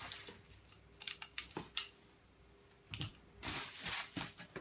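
Plastic packaging being handled: a few sharp clicks, a quiet pause, then short rustles of the wrapping near the end.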